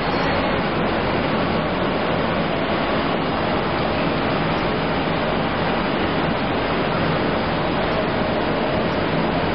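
Semi-automatic folder-gluer for corrugated boxes running, a steady dense mechanical noise from its feed rollers and belts moving cardboard sheets.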